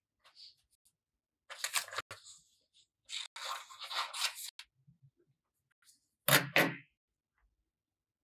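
Scissors cutting a sheet of white paper: snips and paper rustling in two short stretches, then a louder clatter about three quarters through as the scissors are set down on the table.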